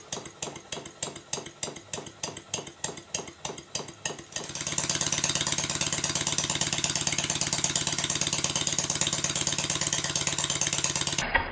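Stuart Sirius twin-cylinder model steam engine running on compressed air, its exhaust beating evenly about three times a second. About four seconds in it turns louder and settles into a much faster steady beat with a strong hiss of air.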